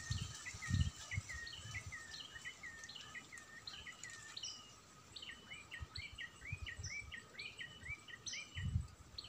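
A songbird singing a long run of short, sharply bending chirps, two or three a second and quicker in the middle, over a faint steady insect drone. A few low thumps come through, the loudest about a second in.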